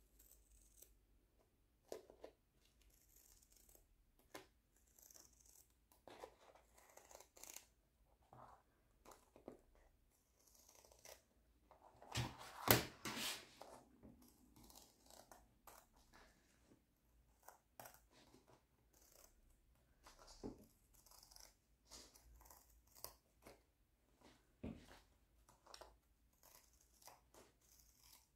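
Scissors snipping through a diamond painting canvas, cutting away its border: quiet, scattered snips and crackles of the stiff canvas, loudest around twelve to thirteen seconds in.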